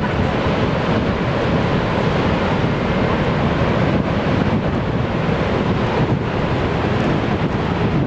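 Niagara's Horseshoe Falls pouring over its brink into the basin: a loud, steady, deep rush of falling water that never pauses, heaviest in the low and middle range.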